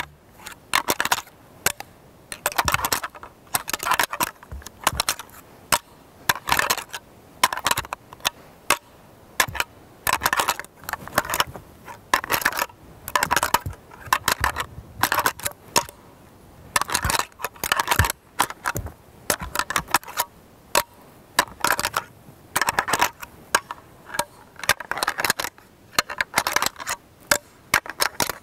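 Deer-rattling antlers clashed and ground together in short clacking bursts about every second or two, imitating two bucks sparring during the rut to call a buck in.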